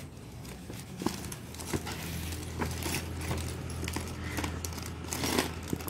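A clear plastic zip-lock bag rustling while small electronic parts (LEDs with wire leads, a small circuit board) are shaken out of it, with many small sharp clicks as the parts tap against each other and the table.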